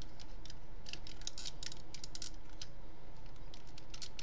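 Chrome-painted plastic transforming-robot figure (an MP-10 Optimus Prime copy) being handled and transformed: its parts and joints give irregular quick clicks and taps, several a second.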